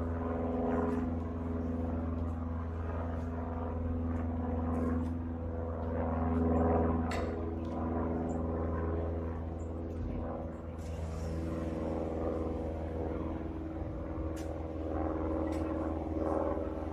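Engine and propeller of a small propeller airplane droning steadily as it flies overhead, a low hum with a steady pitched tone.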